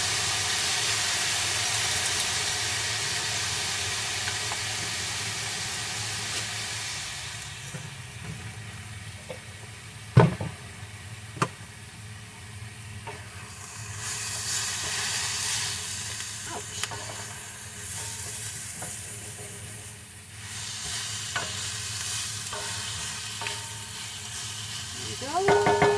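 Tofu and kale scramble sizzling in a frying pan as it is stirred. The sizzle is loud at first and fades over several seconds, then comes back more softly. Two sharp knocks of the utensil on the pan come about ten seconds in.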